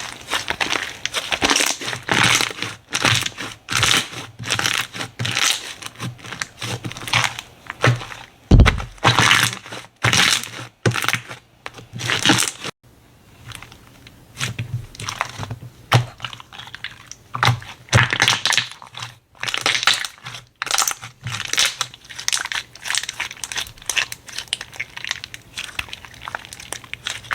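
Hands squeezing and pressing slime: a run of short crackling, crinkly squishes, with a low thump about nine seconds in and a quieter spell shortly after.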